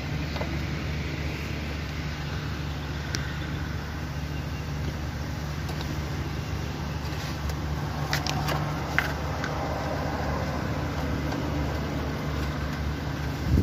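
Steady low mechanical hum, with a few light clicks a little past the middle.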